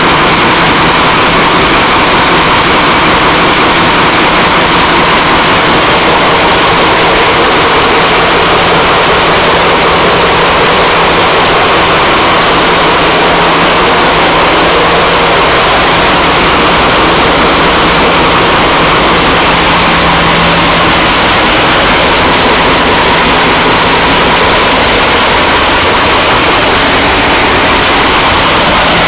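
Two Maybach MD655 V12 diesel engines of a Class 52 'Western' diesel-hydraulic locomotive idling steadily while warming up, heard loud and close from inside the engine room.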